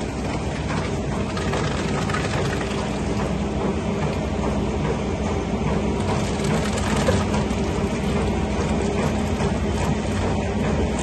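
Crushed red grape mash being pumped through a corrugated hose into a plastic vat: a machine running steadily with a low hum, over the wet crackling and sloshing of berries and juice pouring from the hose.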